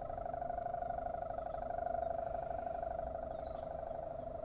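Sendaren kite hummer on a large pegon kite, droning in the wind: one steady buzzing tone with a fast pulsing flutter, swelling a little in the middle and easing off.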